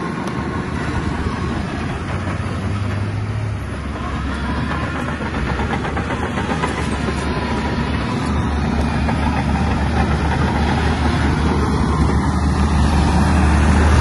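Shantui bulldozer's diesel engine running steadily, its low drone growing louder over the second half.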